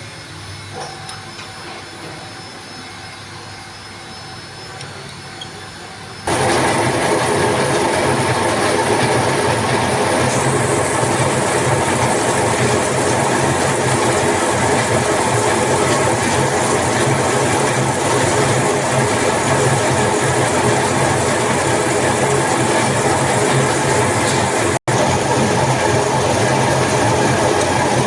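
A machine running steadily, quieter for the first six seconds, then suddenly louder and continuous, with a split-second break near the end.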